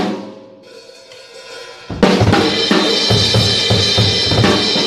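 Drum kit with Paiste 900 Color Sound cymbals: a fill dies away, leaving cymbals ringing out. About two seconds in, a loud crash brings the full kit back in, with snare and cymbal hits over fast, regular bass-drum strokes.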